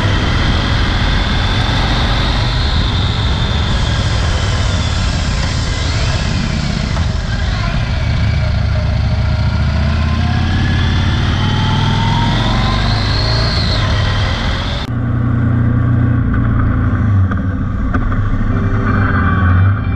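Motorcycle engine under way with wind rush, its pitch rising and falling with the revs. About fifteen seconds in, the sound changes abruptly to a lower, steadier engine rumble without the hiss.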